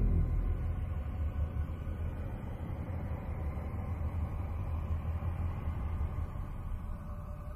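Low, steady rumbling drone from an ambient electronic soundtrack, fading down over the first second from a loud deep boom, with a few faint high held tones above it.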